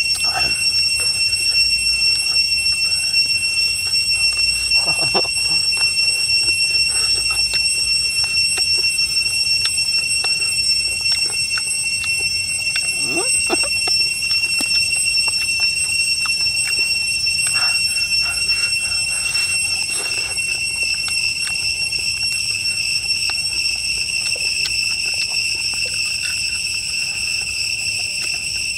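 Insects calling in a steady, high-pitched drone that does not break, with a few faint short noises underneath.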